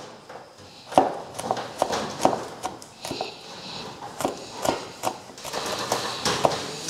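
Knife chopping curly red chillies on a wooden cutting board: a series of short knocks of the blade on the wood, about three a second, with a brief pause around the middle.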